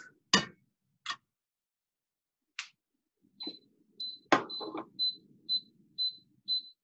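Pans and a spoon knocking as cookware is moved about on a glass-top stove, the loudest knock a little after four seconds. From about four seconds in, a short high electronic beep repeats about twice a second.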